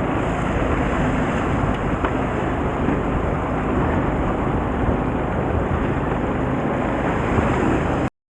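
A small fishing boat's engine running, with a steady rush of wind and water over it; it cuts off suddenly near the end.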